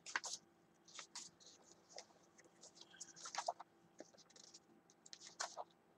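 Faint, scattered rustles and light scratchy ticks of paper pages being handled and turned.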